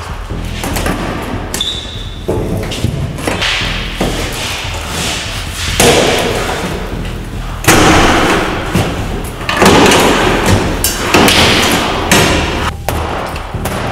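Repeated heavy metal bangs and thuds as insulated blast-wall panels and their steel channels are struck and knocked loose with a long-handled tool, each blow echoing in the large room. The loudest bangs come in the second half.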